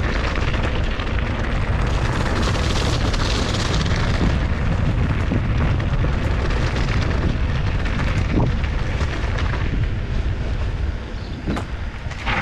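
Wind buffeting the GoPro microphone, with the rattle and crunch of a downhill mountain bike's tyres rolling fast over loose gravel. The noise eases about ten seconds in as the bike slows onto a smoother surface.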